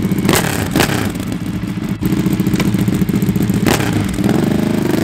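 Ducati Panigale sportbike engine running through twin Akrapovič silencers, idling with a lumpy pulse, with three sharp cracks from the exhaust and the revs climbing near the end.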